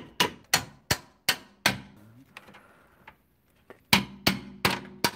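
Hammer blows on the steel of the rear suspension while the rear shock absorber is being freed: five sharp, clanging strikes about two and a half a second, a pause of about two seconds, then four more near the end.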